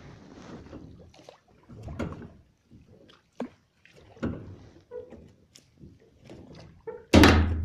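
Small boat on the water: irregular knocks and short splashing noises about once a second, with one loud thump near the end.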